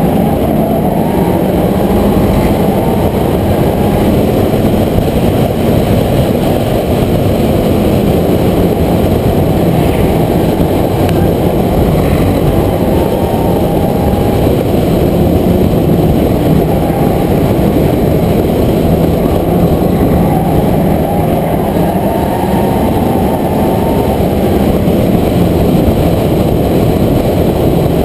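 Onboard sound of a race car's engine running hard at racing speed, a loud, steady sound whose pitch wavers slightly up and down, mixed with road and wind noise.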